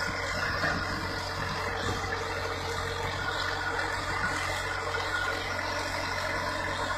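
Tractor's diesel engine running steadily, with a low hum and no changes in speed.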